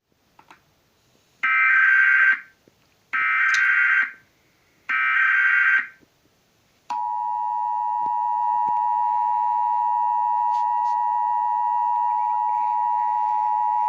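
Emergency Alert System broadcast: three short bursts of the SAME digital header, a buzzy data screech, then about seven seconds in the steady two-tone attention signal (853 and 960 Hz) starts and holds.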